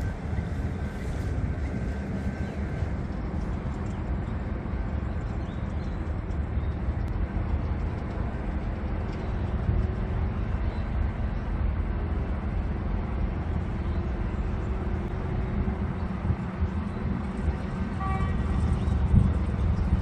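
Steady low outdoor rumble of distant road traffic, with wind buffeting the microphone. A brief faint higher-pitched sound comes near the end.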